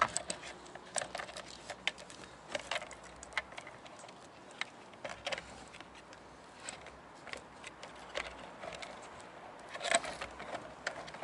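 Irregular light clicks and rattles of the plastic fuel pump module being handled and fitted together as the in-tank pump is reassembled, with a denser cluster of knocks near the end.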